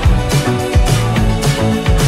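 Background music with a steady drum beat and a moving bass line, no singing.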